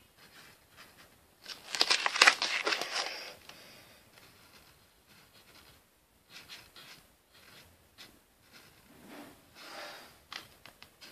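Rustling and scratching of paper being handled and drawn on with markers. It is loudest as a dense crackly rustle for a second or two near the start, then fainter scratches come and go.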